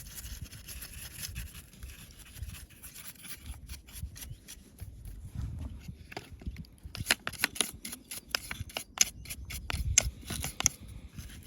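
A small brush scrubbing a screwdriver part clean: a run of quick, irregular strokes that gets busier and louder in the second half.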